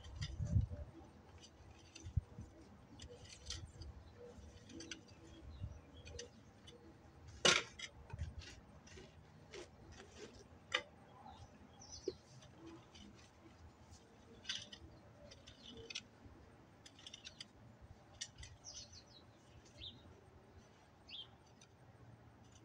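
Garden fork tines scraping and clicking through loose soil in irregular strokes, with one louder crack about seven and a half seconds in. Birds chirp now and then.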